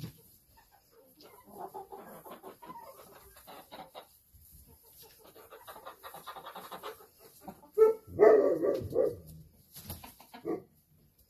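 Chickens clucking and chattering in a coop, with a louder outburst of squawking about eight seconds in and a flutter of wings near the end.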